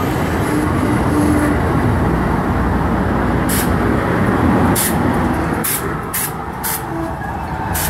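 Amtrak Superliner double-deck passenger cars rolling past close by: a steady heavy rumble of wheels on rail, with a run of sharp clacks starting about halfway through.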